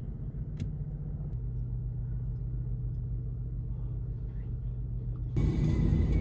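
Vehicle engine running with a steady low hum, with a single click about half a second in; near the end the sound jumps suddenly to a louder, fuller rumble.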